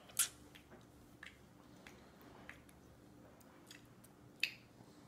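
A baby chewing and mouthing soft cantaloupe, making scattered wet smacks and clicks, the loudest a quarter second in and again near the end.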